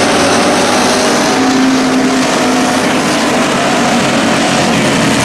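Several dirt-track stock car engines running together on the track, a loud continuous engine drone with a brief held engine tone standing out in the middle.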